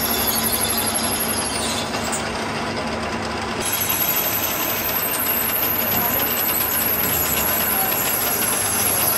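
Metal lathe running with a cutting tool turning the face of a cast tractor differential case: a steady machining grind with a thin high whine over it.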